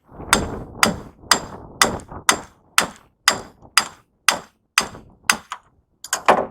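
Hammer blows on metal, struck steadily about two a second, then a quick cluster of several hits near the end. The blows come from knocking copper windings out of a scrap electric motor.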